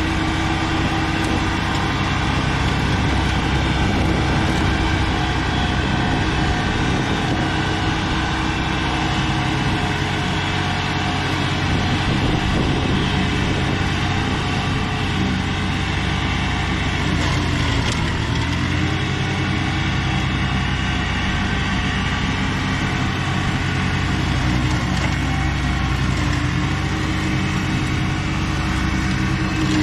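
Tractor engine running steadily as it mows and mulches hay. About two-thirds of the way through, its pitch sags briefly and then comes back up.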